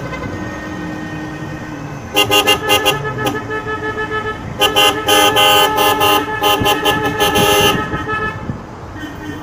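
Car horn honking in two long blasts, about two seconds in and again from about four and a half to nearly eight seconds in, over the running of cars in a slow convoy.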